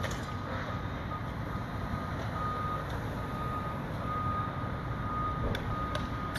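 Reversing alarm of heavy demolition machinery beeping steadily at about one beep a second, over the low rumble of a diesel engine.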